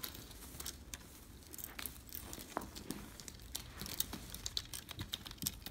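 Faint, irregular rustling and light clicks of a feather wand cat toy being flicked across a rug while a cat bats at it.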